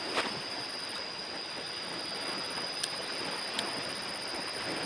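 Steady rush of a flowing river with a constant high-pitched whine over it. Just after the start, a short, sharp splash as a thrown cast net lands on the water, then two light clicks as the net is handled and drawn back in.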